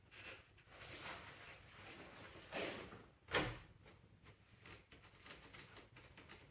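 Hands-on work noises: parts and tools being handled and scraped, with one sharp knock a little over three seconds in.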